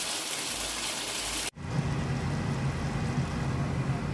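Whole bata fish frying in hot oil in a metal kadai: a steady sizzle that cuts off suddenly about one and a half seconds in. It is followed by a softer, steady noise with a low hum.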